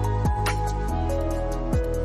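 Background music: a mellow electronic track with sustained bass and synth notes, a deep kick drum and light high percussion.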